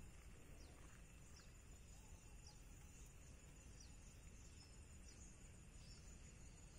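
Near silence: quiet outdoor ambience with a faint high chirp, falling in pitch, repeated over and over.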